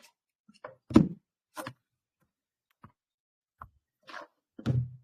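A few short knocks and thumps over a quiet background. The loudest comes about a second in and another near the end, with fainter ticks and a brief rustle between them.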